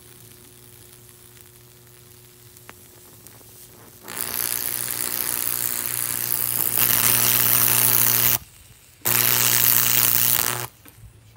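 High-voltage fractal (Lichtenberg) burn on bamboo: the electrical arc crackling and buzzing over a steady hum as it burns through the wood. It starts loudly about four seconds in, grows louder, cuts out for about half a second, resumes, and stops shortly before the end.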